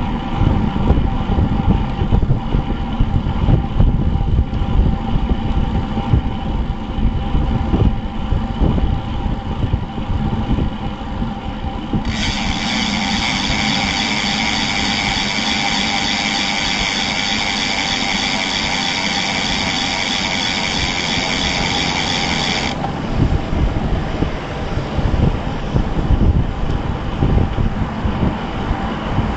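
Wind buffeting the microphone of a camera mounted on a moving bicycle, a steady uneven low rumble. About twelve seconds in, a steady high-pitched hiss starts abruptly, the rumble eases, and the hiss cuts off sharply about ten seconds later.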